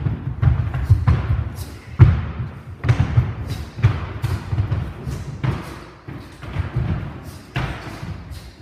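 Bare feet thudding and stamping on a wooden floor in irregular quick steps, with sharp slaps of kicks and strikes landing during Taekwon-Do free sparring.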